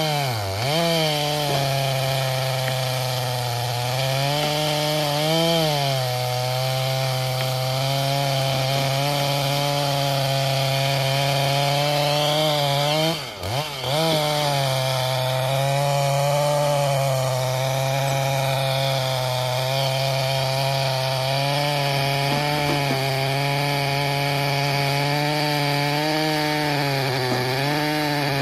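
Chainsaw running at high revs while cutting wood, its engine note sagging now and then under load and dropping sharply for a moment about halfway through.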